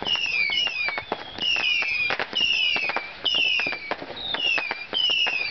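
Whistling fireworks going off: falling whistles repeating about once a second, over a dense run of sharp crackling pops.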